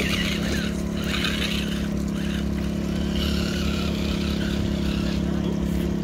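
A motor runs at a steady pitch, giving a constant low hum throughout, with patches of higher hiss coming and going over it.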